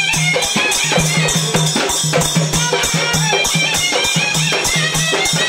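Live South Indian folk music played on a hand drum with accompanying instruments, in a fast, steady rhythm over a low pulsing tone.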